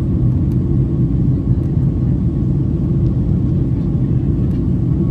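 Steady low rumble inside the cabin of a Boeing 767-300ER under take-off power: engine and airflow noise heard from a passenger seat.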